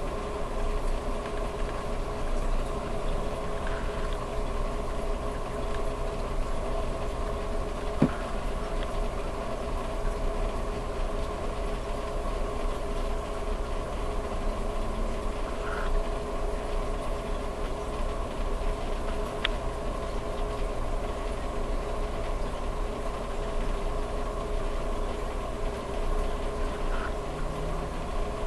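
Steady hum of reef aquarium equipment, pumps running and water circulating, with a couple of faint clicks.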